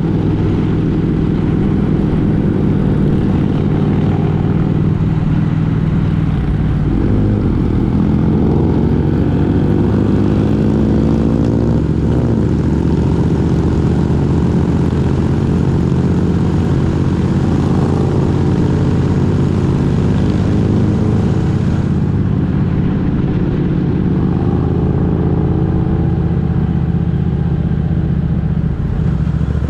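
A road vehicle's engine running on the move over steady road noise, its pitch shifting up and down a couple of times as the speed changes.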